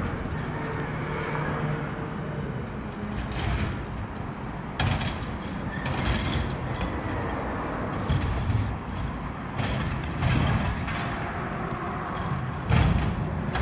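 Automated side-loader garbage truck running while its hydraulic arm grabs a wheeled trash bin and lifts it to dump, a steady engine hum broken by several sharp clanks and knocks, the loudest near the end.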